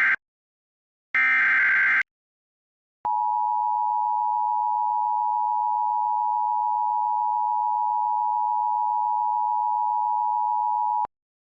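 Emergency Alert System alert opening: the tail of one SAME digital header burst, then one more full burst about a second long. About three seconds in, the EAS two-tone attention signal (853 and 960 Hz) sounds steadily for about eight seconds and cuts off sharply.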